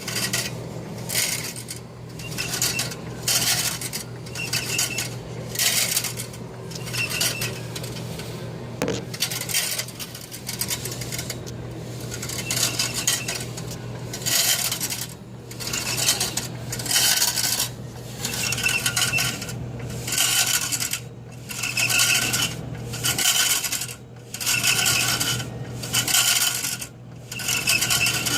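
An HP machine making an unwanted, repeated metallic rattling and scraping noise in bursts about once a second, over a steady low hum.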